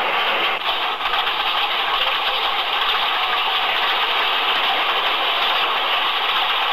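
A train running along the track: a steady, even noise with no clear beat and no letting up.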